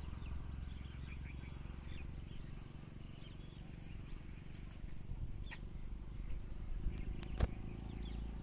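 Insects trilling steadily in a high, fast-pulsed call, with a shorter chirp repeating a few times a second below it, over a low wind rumble on the microphone. Two sharp clicks in the second half, the louder one near the end.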